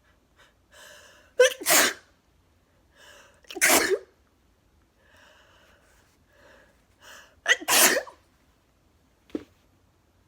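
A woman sneezing three times, each sneeze preceded by short breathy inhales building up to it.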